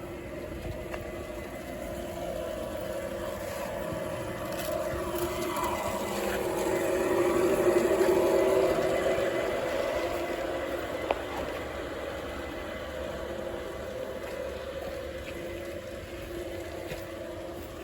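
Garden-scale model train running past on outdoor track: its motor and wheels hum steadily, grow louder to a peak about eight seconds in, then fade away.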